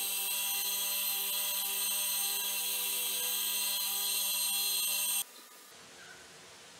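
Electric motor spinning a polishing wheel on its shaft, running at a steady whine with many high tones. It stops abruptly about five seconds in, leaving only faint room noise.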